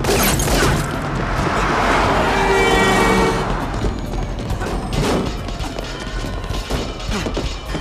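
Film action-scene soundtrack: music with crashes and hard impacts. The loudest hits come at the start, about five seconds in and about seven seconds in.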